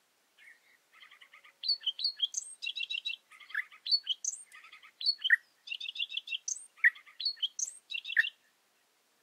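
A songbird singing a long, varied song of rapid trills and quick rising whistles, starting about half a second in and stopping near the end.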